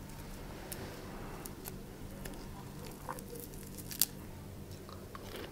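Cooked prawn being pulled apart and peeled by hand: faint crackling and tearing of shell and flesh, with a sharp crack about four seconds in. A room air conditioner hums steadily underneath.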